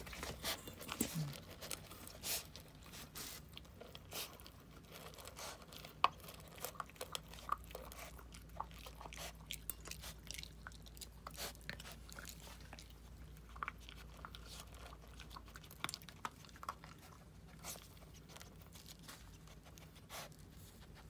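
A pet crunching and chewing dry kibble from a stainless steel bowl: irregular crisp crunches and clicks, with one sharper click about six seconds in.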